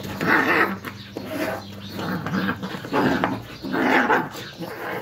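Two cats fighting, yowling in a string of about five loud cries roughly a second apart.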